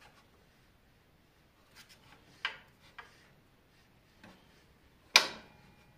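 A few sharp metallic clicks and knocks from a Belmash 2200 thickness planer's cutterhead and its locking latch as they are turned and worked by hand, with the loudest click, which rings briefly, near the end.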